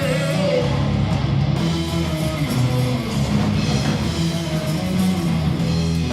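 Live heavy rock band playing an instrumental passage: strummed electric guitar to the fore, with bass guitar underneath and no vocals.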